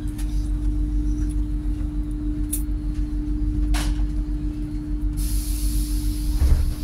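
Inside a GWR Class 800 train: a steady low rumble and hum. About five seconds in, a loud hiss of escaping air sets in and keeps going, with a short low thump near the end.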